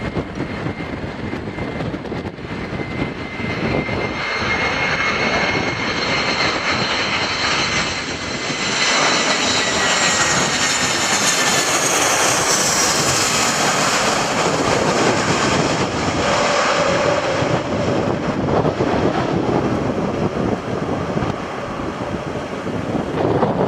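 Airbus A320-family jet airliner on landing approach with gear down, passing low overhead. The turbofan engine noise grows loud as it comes over, with a high engine whine that falls in pitch as it passes, then eases off a little as it moves away.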